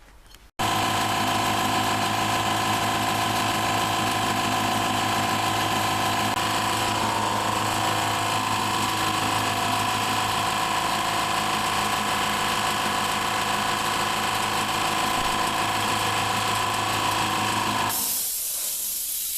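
Cheap piston air compressor starting up suddenly and running steadily with an even hum, now working on a freshly made paper head gasket and refaced valve plate. Near the end it cuts out and a hiss follows.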